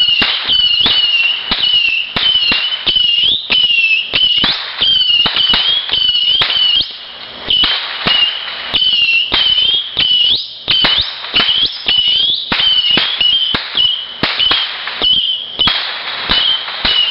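Fireworks going off in a rapid, continuous string of crackling pops, over a steady high warbling whistle that wavers in pitch.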